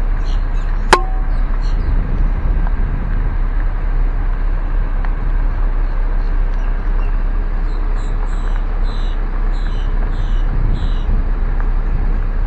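Steady low rumble of a car driving slowly, heard from inside the car, with one sharp click about a second in. A bird chirps repeatedly near the end, short falling notes about twice a second.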